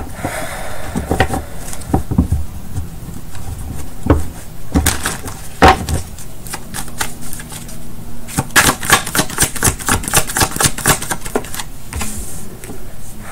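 Tarot deck being shuffled by hand. Scattered card taps and slaps come first, then a fast, dense run of card flicks from about eight seconds in for a few seconds.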